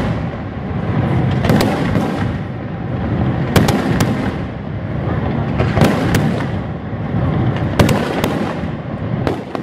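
Daytime fireworks: aerial smoke shells bursting with sharp bangs, mostly in close pairs about every two seconds, over a continuous dense rumble and crackle of launches and reports.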